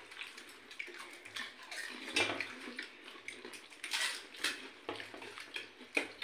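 Pani puri (gupchup) being eaten by hand: fingers dipping the hollow puris into a steel bowl of spiced water, with irregular wet splashes, crunches and slurps.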